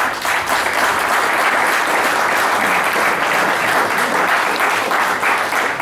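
Audience applauding, many hands clapping at a steady, even level from start to finish.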